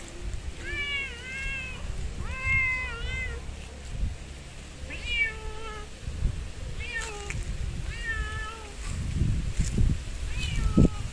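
Domestic cat meowing repeatedly: about eight short meows, each rising and then falling in pitch. Low rustling runs underneath, with a thump near the end.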